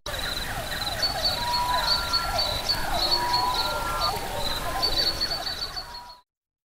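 Jungle-style soundscape of bird calls: many short falling chirps and a few longer whistles over a high pulsing trill. It fades out and cuts off about six seconds in.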